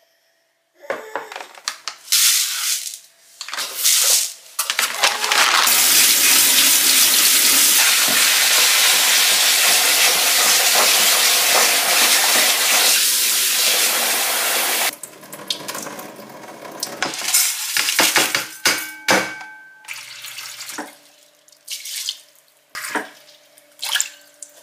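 Kitchen tap running steadily into a plastic bowl of rice for about ten seconds while the rice is rinsed. Before and after it come knocks and rattles of plastic bowls and kitchenware being handled.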